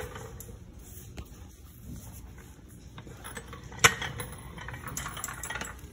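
Steel floor jack being rolled across a garage floor and slid under a car, with light metallic rattling and one sharp clank about four seconds in.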